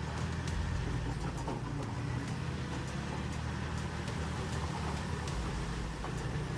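Heavy earthmoving machine's diesel engine running steadily, with scattered light ticks and knocks over it.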